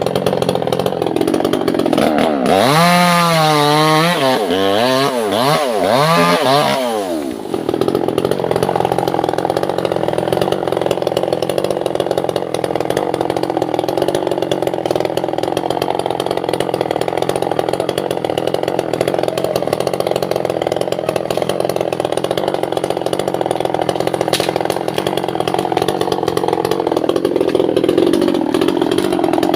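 Chainsaw cutting albasia (sengon) wood. A few seconds in, its engine pitch swings rapidly up and down several times, then it runs steadily for the rest of the time.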